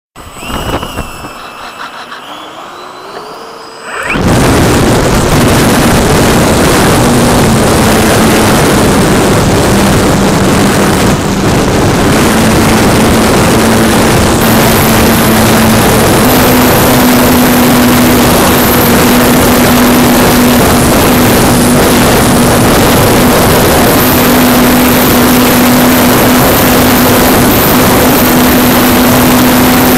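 Radio-controlled model airplane heard from a camera on board: quiet at first with a faint rising whine, then about four seconds in the throttle goes up. A loud rush of propeller wash and wind on the microphone takes over, with a steady motor drone under it that shifts pitch now and then.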